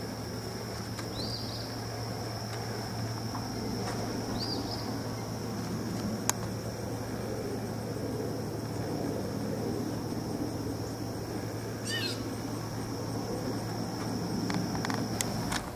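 Steady high-pitched drone of insects with a few short bird chirps, about a second in and around four seconds, and a louder bird call near twelve seconds, over a steady low hum.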